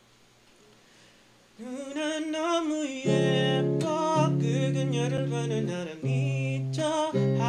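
About a second and a half of near silence, then a man sings a wordless, wavering melody with vibrato; about three seconds in, strummed electric guitar chords join and ring under the voice, with short breaks.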